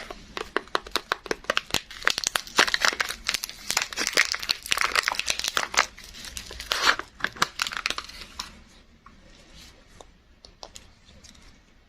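Soap packaging being unwrapped by hand: dense crinkling and tearing of the wrapper, thinning out to a few quieter crackles and taps about eight and a half seconds in.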